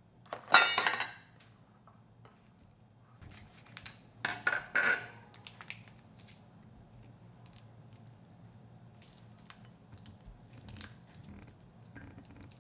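Metal kitchenware clanking on a stone countertop: one clatter with a ringing note about half a second in, and another burst of clattering around four seconds in. After that come faint crinkles and ticks as a plastic sauce packet is handled and squeezed out.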